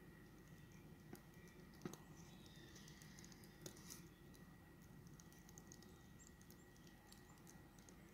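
Near silence: faint outdoor background with scattered soft ticks and clicks and a faint steady high tone.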